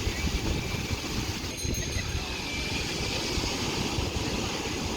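Wind buffeting the camera microphone over a steady rush of ocean surf, with an uneven low rumble throughout.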